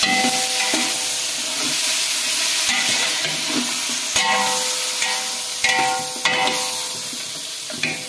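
Raw chicken pieces sizzling in hot oil in a large metal pot while a metal ladle stirs them. The ladle scrapes and clanks against the pot about six times, each knock making the pot ring briefly.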